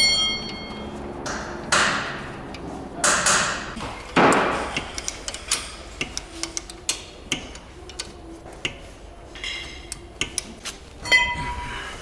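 Ratchet wrench tightening the mounting bolts of a new rear wheel hub: a few short rasps of ratcheting in the first seconds, then scattered sharp clicks, and a ringing metallic clink near the end.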